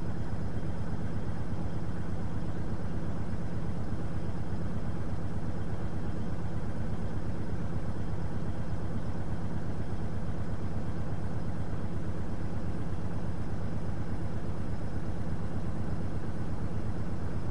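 Truck engine idling: a steady low drone that does not change.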